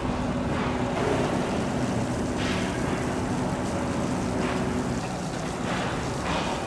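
Construction-site heavy machinery: a diesel engine drones steadily, with short bursts of hiss every couple of seconds. The drone shifts about five seconds in.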